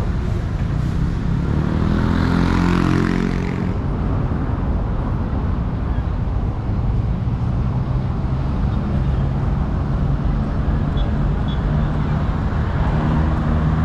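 City street traffic with a steady low rumble. One vehicle engine is loud for the first few seconds and stops abruptly, and another engine comes in near the end.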